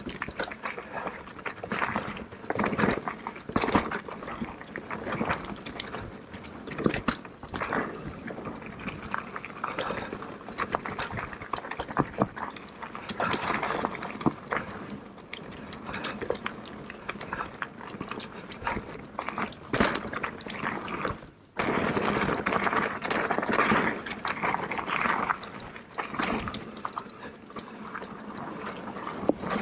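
2022 Turbo Levo electric mountain bike riding down a dirt trail: tyres running over the ground, with frequent knocks and rattles as the bike goes over bumps, and a brief lull about two-thirds of the way through.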